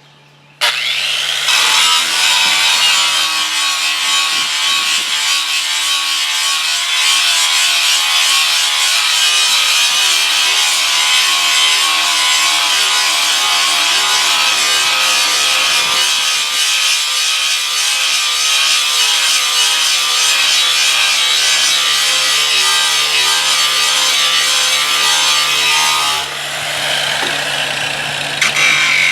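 A power tool running steadily against a surface with a continuous rasping, abrasive noise and a steady low hum. It starts suddenly about half a second in, eases off near the end, then picks up again briefly.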